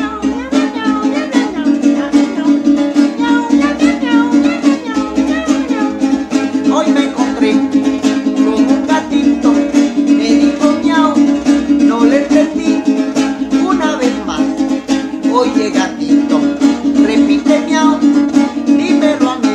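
A cuatro, a small four-string guitar, strummed in a fast, steady rhythm with a melody running over it.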